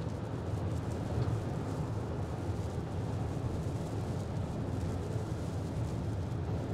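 Steady road and tyre rumble inside the cabin of a Togg T10X electric SUV being driven on a wet track, with no engine note.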